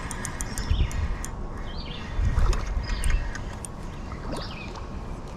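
Creekside outdoor ambience: a steady hiss with several short bird chirps, and two low rumbling swells, one about a second in and a longer one between two and three seconds in.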